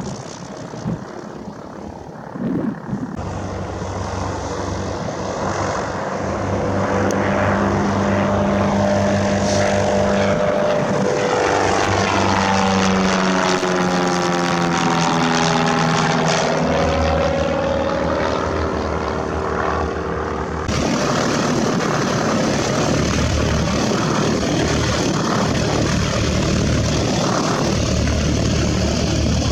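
Propeller airplane engine droning as it passes by, building up and loudest in the middle with its tone sweeping as it goes past, then running on steadily.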